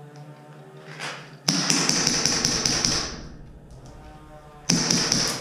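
Two bursts of rapid clicking with a high whine, the first about a second and a half long and the second shorter near the end, typical of an automatic airsoft gun firing.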